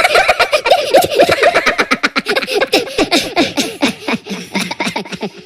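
High-pitched cartoon giggling from the Minions: a rapid string of short laughs, each falling in pitch, slowing and growing quieter toward the end.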